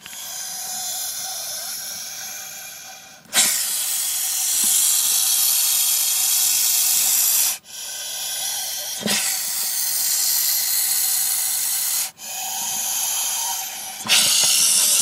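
Bull snake hissing loudly in a series of long breaths, each lasting one to four seconds, broken by short sudden pauses.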